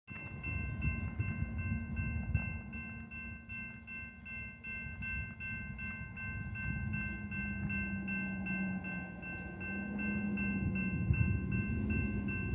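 Railroad grade-crossing bell ringing in rapid, even strokes, over a low rumble.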